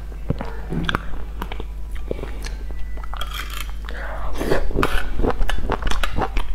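Close-miked eating sounds: chewing and biting with quick wet clicks and smacks, busier in the second half, over a steady low hum.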